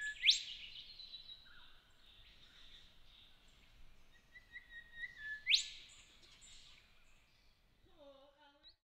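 Birds calling in bushland: a sharp, whip-like call that sweeps steeply upward sounds twice, about five seconds apart, over a faint steady high-pitched background of bird or insect calls.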